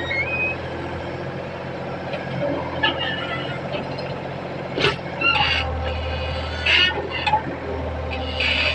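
Excavator diesel engine running steadily, pulling harder about five seconds in as it comes under hydraulic load, with several sharp clanks and scrapes of metal against ground.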